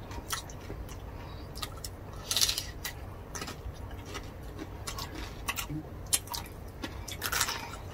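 Close-miked eating of roast pork by hand: scattered wet chewing and lip-smacking clicks, with two longer, louder noisy bursts, one about two and a half seconds in and one near the end.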